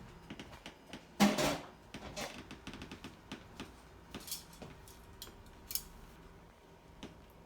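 Light clicks and knocks of kitchen items being handled, with one louder clatter about a second in.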